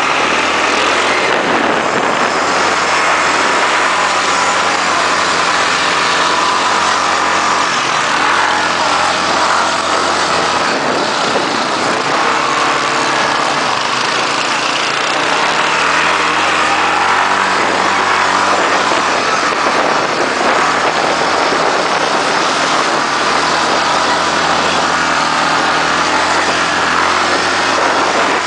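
Quad bike (ATV) engines running under throttle on a dirt track, the engine pitch rising and falling several times as the throttle changes, over a steady rushing noise.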